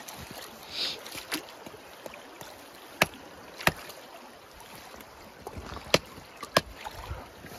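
Hatchet chopping at a deer's leg bone: five sharp, unevenly spaced chops over the steady rush of a shallow creek.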